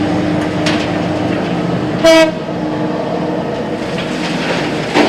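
Large mining excavator's diesel engine running steadily with a deep rumble. A short, loud blast of one pitch cuts through about two seconds in.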